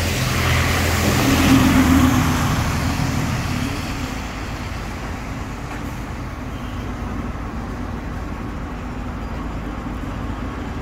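Diesel bus engines: a bus passing close by, loud for the first two or three seconds and then fading, leaving a steady diesel idle under street traffic, from the vintage Gardner-engined Fleetline double-decker standing at the stop.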